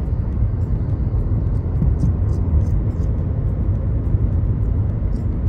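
Steady low road rumble of a car driving along a motorway, heard from inside the car.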